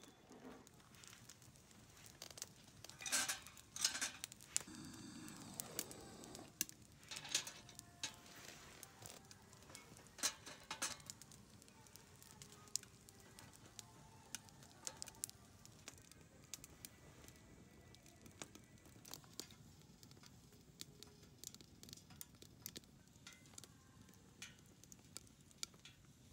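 Wood fire crackling with scattered sharp pops, and louder knocks and clatters in the first half.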